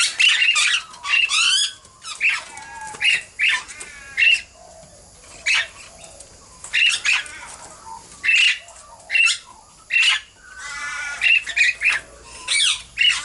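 Princess parrots squawking: a string of short, harsh calls at irregular intervals, mixed with a few quick chattering runs.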